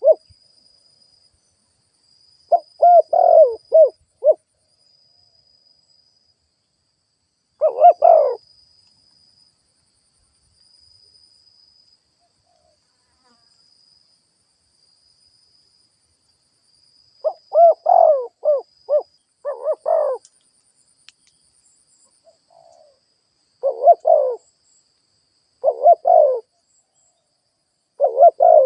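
Spotted dove cooing: repeated phrases of several low coo notes, each phrase one to two seconds long, separated by pauses of a few seconds, with a cluster of phrases in the second half. It is the calling of a decoy dove used to draw in wild doves.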